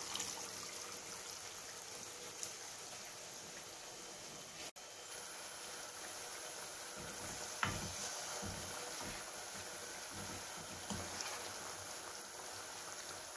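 Water trickling from a bowl into a pan of simmering fish curry, over the curry's steady sizzle and bubbling. A small knock comes a little past halfway.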